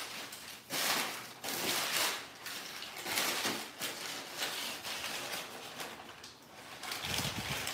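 Crumpled brown kraft packing paper rustling and crinkling as it is pulled by hand out of a cardboard box, in repeated bursts.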